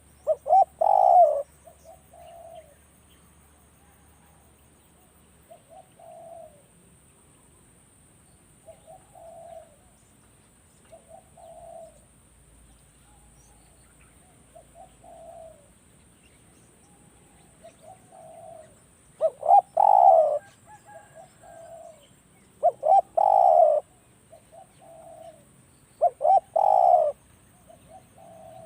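Spotted doves cooing in repeated phrases. Loud, close coo phrases come about a second in and three more times in the last ten seconds, with softer coos in between.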